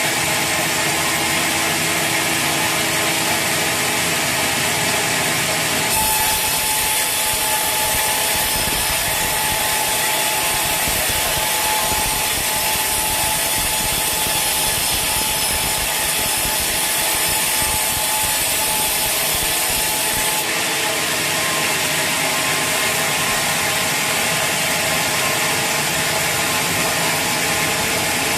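Sawmill saw cutting through a teak log, a loud continuous grinding rasp of blade in wood with a steady whine. From about six seconds in to about twenty seconds in the sound turns brighter and fuller, then drops back to the steady running sound.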